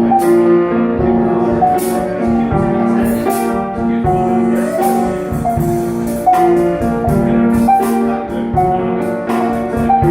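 Live instrumental music: sustained melody notes over a steady rhythm of strikes, with no singing.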